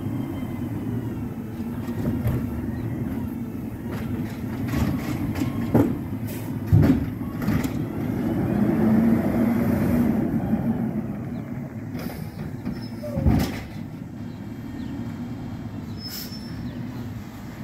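2018 Autocar ACX Xpeditor garbage truck with an Amrep automated side-loader body, its natural-gas engine running, with several sharp metal clanks and bangs from the truck. About eight seconds in the engine revs up for a couple of seconds as the truck pulls ahead.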